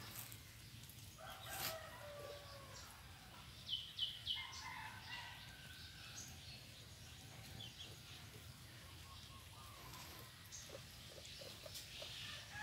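Faint chicken calls: a rooster crows about a second in, followed by a few short, high calls and clucks.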